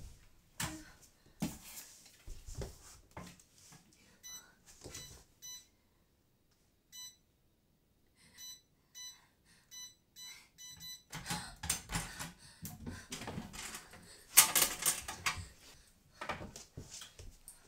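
Series of short electronic beeps from a keypad lock as a code is punched in, about a dozen presses in quick succession. After that comes a stretch of rattling and bumping as the locked unit is handled and pulled at, loudest about fourteen seconds in.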